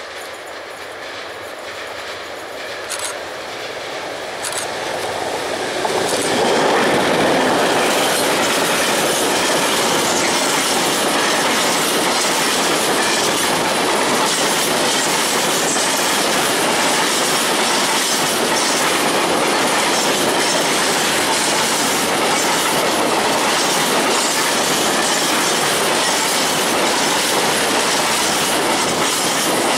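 Freight train of tank wagons hauled by an M62 diesel locomotive, growing louder over about the first six seconds as it comes up. The wagons then roll past close by with a steady clatter of wheels over the rail joints.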